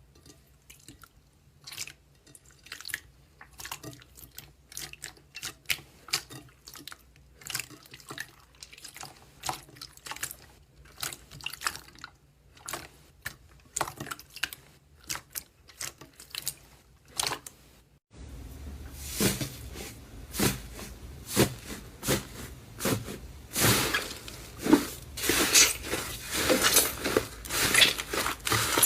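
Slime being squeezed and pressed by hand: a run of short wet clicks and small pops, several a second. About two-thirds of the way through it cuts to a louder, busier run of pops over a steady hiss.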